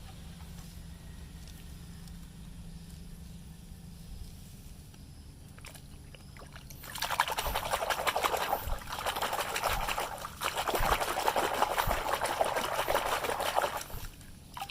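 Running water splashing over a muddy toy cement mixer truck as it is washed, in two long bursts about seven and ten seconds in, after a quieter stretch.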